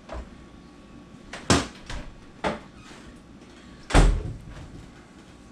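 A few sharp knocks as a countertop blender is set up on its base, then a heavy thump about four seconds in from a lower kitchen cabinet door.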